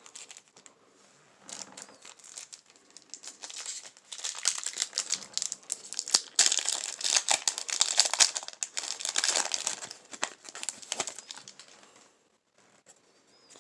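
Foil Yu-Gi-Oh booster pack wrapper crinkling as it is handled and torn open, a dense crackle that is loudest in the middle.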